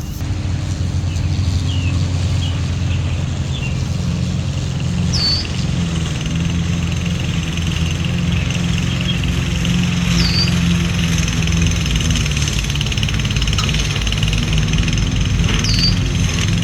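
Gas push lawnmower engine (Toro Smart Stow self-propelled mower) running steadily. A bird calls with a short falling chirp three times, about five seconds apart.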